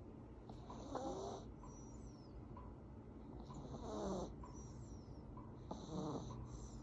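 An affenpinscher puppy snoring in its sleep: three slow snoring breaths about two and a half to three seconds apart, each followed by a faint, high, falling whistle.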